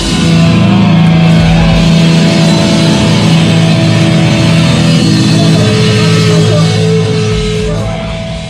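A live rock band strikes one last loud hit together, then lets the distorted electric guitars and bass ring out on a long held final chord. The held chord fades away near the end.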